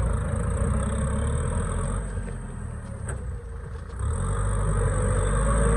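Kubota M6040SU tractor's diesel engine running under load as the tractor works in deep mud, stuck. It turns quieter for about two seconds in the middle, then comes back louder and keeps rising.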